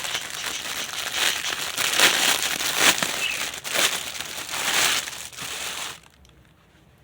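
Packaging crinkling and rustling as an item is handled and unwrapped, with many quick crackles. It stops abruptly about six seconds in.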